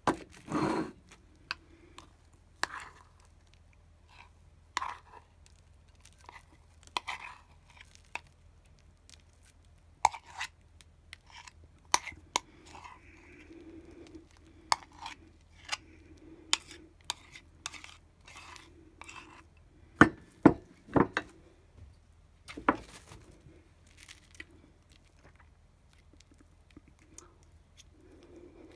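Crumbly homemade chocolate handled on a plate covered in cling film: plastic wrap crinkling and scattered taps and scrapes of a spoon and spatula. A few louder knocks come about two-thirds of the way through.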